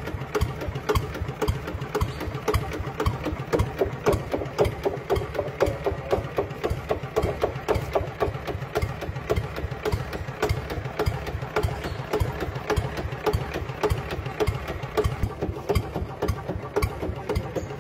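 A small engine idling, with a rapid, even knocking beat that does not change.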